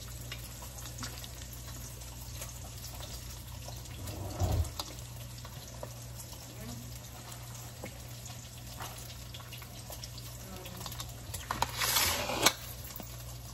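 Hands peeling shrimp tails over a glass baking dish: faint scattered clicks against a steady low hum, with a dull thump about four and a half seconds in and a brief hiss near the end.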